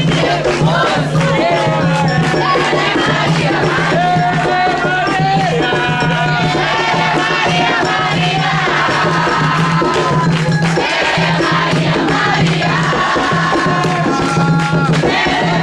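Umbanda ceremonial music: many voices singing and calling out together over a shaken rattle.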